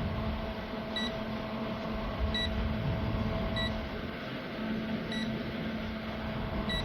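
A short, high electronic beep repeating every second or so, about six times, over a steady mechanical hum.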